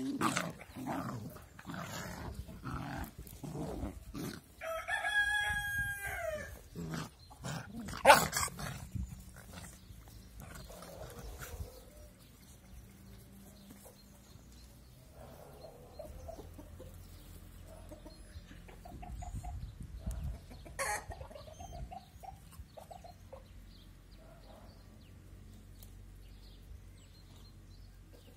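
Puppies growling as they play-fight, then a rooster crows once about five seconds in, a sharp knock follows a few seconds later, and the rest holds softer chicken clucking.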